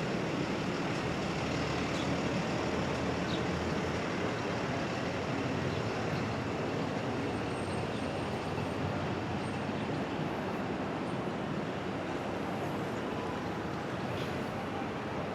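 Steady rumble of city street traffic, passing vehicles blending into one continuous noise.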